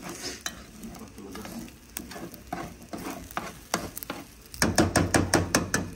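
Eggs frying and sizzling in a cazuela as a utensil scrapes and clicks against the pot, working egg that is sticking to it. The scraping gets quicker and louder about four and a half seconds in.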